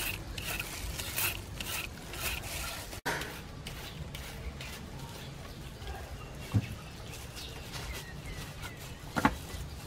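Carrot being shredded into strips with a hand shredder: crisp scraping strokes about twice a second, stopping about three seconds in. After that a quieter background with a sharp knock past halfway and another near the end.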